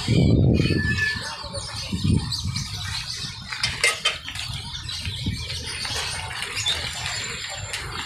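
A crowd of baby chicks peeping, many short high chirps overlapping without pause. A loud low rumble fills the first second, and a few sharp clicks come near the middle.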